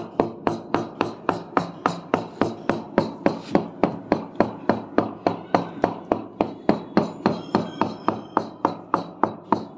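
Rapid, even knocking of a wooden handle on a polished granite slab, about four taps a second, tapping the slab down into its wet mortar bed to level it.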